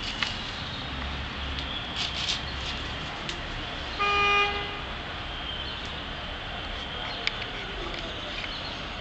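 A single short vehicle horn toot, held at one steady pitch for about half a second, a little before halfway through, over a steady hum of street traffic. A few faint clicks can be heard.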